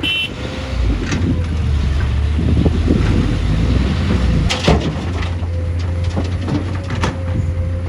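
Heavy diesel machinery running with a steady low rumble, with a few sharp metallic knocks about four and a half and seven seconds in.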